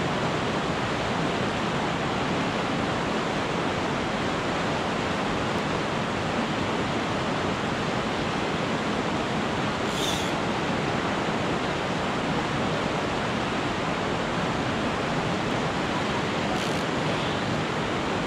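Fast river rapids rushing over boulders: a steady, even roar of white water.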